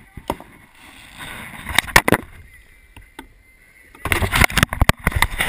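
Handling noise on a fishing kayak: a few sharp knocks and clicks, then from about four seconds in, loud scraping and clattering right at the camera as something is pressed against it.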